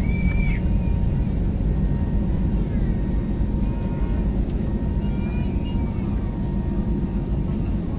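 Steady rumble of engines and airflow heard inside an airliner's passenger cabin. A brief high tone sounds right at the start.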